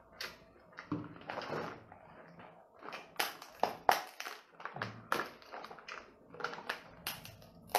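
Cooked king crab shell being broken apart by hand: a run of sharp cracks and snaps as the spiny legs are pulled and split. The cracks come thickest in the second half, the loudest about four seconds in and just before the end.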